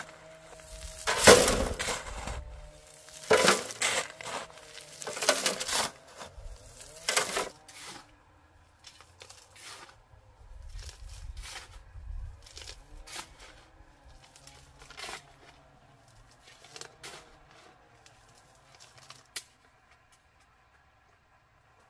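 Shovel scraping and scooping sand and gravel, four strokes in the first eight seconds, loading a steel wheelbarrow. After that only faint scattered clicks and rattles.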